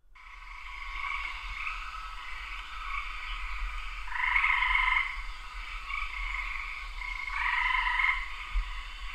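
Frogs calling in chorus, a continuous pulsing trill that fades in at the start and swells louder twice, about four and seven and a half seconds in, over a faint low hum.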